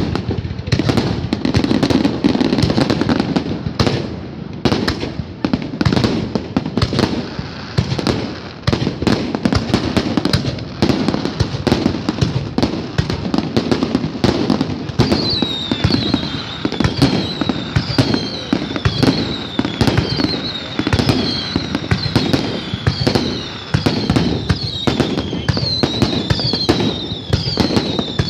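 Aerial fireworks display: a dense, continuous run of bangs and crackling shell bursts. About halfway through, a high falling whistle joins in, repeating roughly once a second.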